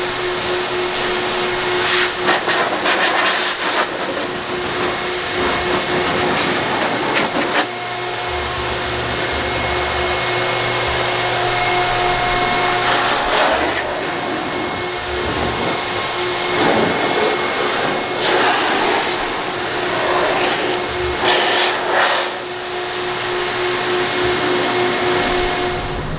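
Handheld electric car-drying blower (an air chamois) running, blowing water off the car body: a steady rush of air over a constant motor whine. The air noise swells and eases slightly as the nozzle is swept.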